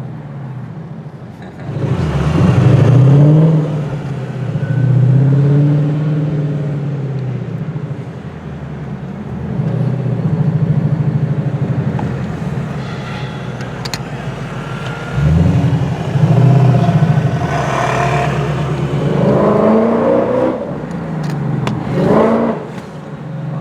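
Ford Mustang GT CS800's V8 engine, tuned to about 825 hp, pulling through several bursts of acceleration, its pitch climbing and then dropping back each time, with steadier cruising between the pulls. Heard from inside the car.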